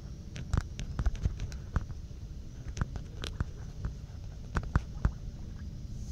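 Low rumbling noise on an outdoor microphone, with a dozen or so irregular sharp clicks and pops scattered through it.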